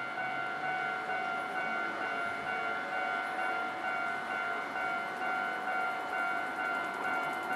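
Japanese level-crossing warning bell ringing: an electronic clanging tone that repeats in a steady rhythm, warning that a train is approaching or passing, over a low noise that fits a train running through the crossing.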